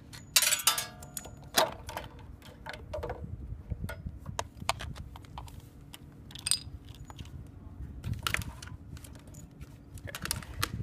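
Hand work on a small engine's plastic air filter housing: a series of clicks, knocks and clatters as the cover knob is unscrewed and the cover and filter are lifted off the carburetor. The engine is not running.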